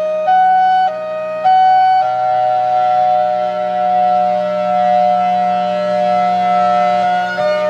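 Federal Signal Thunderbolt 1003 outdoor warning siren sounding hi-lo, switching between two tones about every half second. About two seconds in it holds the higher tone steady for about five seconds, then starts alternating again near the end.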